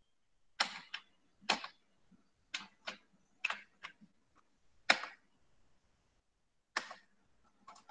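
Scattered clicks of a computer keyboard and mouse as text is typed and an item selected: about ten sharp clicks, several in close pairs, with pauses between.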